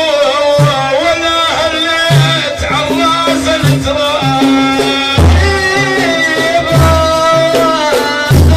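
Sufi dhikr chant: a man's voice sings a wavering, melismatic Middle Eastern melody over steady hand-drum beats, with deep strokes landing about every second and a half in the second half.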